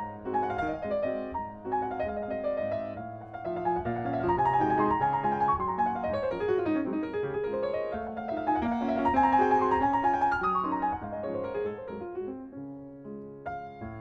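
Piano music with fast runs of notes sweeping down and back up.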